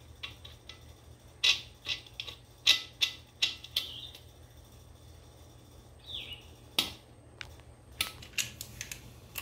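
Sharp metallic clicks and clinks of steel nuts and lock washers being handled and threaded onto wheel-weight bolts at a tractor's front wheel hub. A cluster of clinks comes in the first few seconds, a single loud clink follows later, and a few more clicks near the end come as a socket wrench with an extension is picked up.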